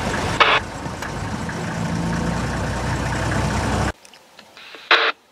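Vehicle engine idling steadily, then cut off abruptly about four seconds in. A brief sharp call comes just after the start and another near the end.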